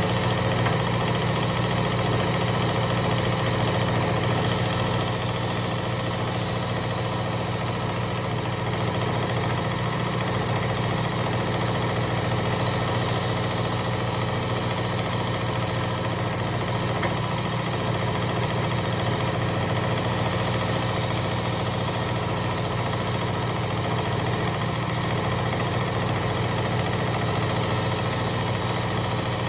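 Work Sharp Ken Onion electric belt sharpener with the blade grinder attachment running steadily on the fine X5 stiff belt. A knife edge is drawn across the belt four times, each pass a hiss lasting a few seconds, about eight seconds apart.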